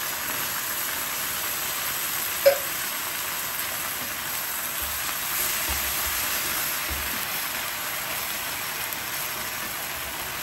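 Chopped tomatoes and onions sizzling steadily in a hot enamelled pan as they are stirred with a wooden spatula, with one sharp knock about two and a half seconds in.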